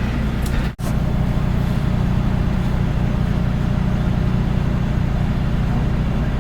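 Nissan Diesel Space Runner RM (PDG-RM820GAN) city bus's diesel engine running steadily on the move, heard from inside the cabin. There is a momentary dropout in the sound just under a second in.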